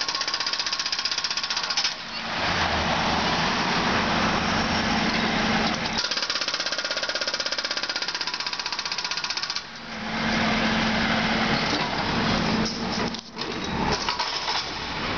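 Jackhammer hammering in bursts of very rapid blows while breaking up asphalt paving: one burst of about two seconds at the start and a longer one of several seconds in the middle. An engine runs steadily between the bursts.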